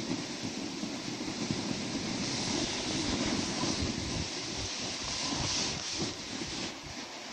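Snowboard scraping and chattering over hard, wind-crusted snow during a descent: a continuous rough rumbling hiss that eases slightly near the end.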